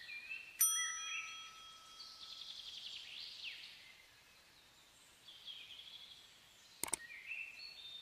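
Sound effects of an animated subscribe-and-like button end card. A ringing ding comes about half a second in, a swishing whoosh runs through the middle, short chirpy blips follow, and a sharp mouse click comes about seven seconds in.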